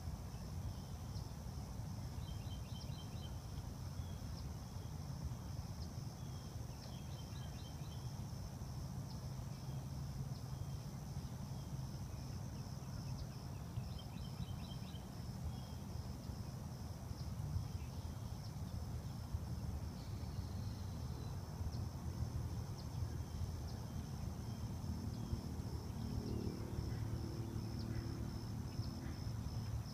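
Steady high, pulsing trill of insects, likely crickets, over a low, constant rumble. A few short chirps come through about three, eight and fourteen seconds in. A low sound with several tones rises near the end.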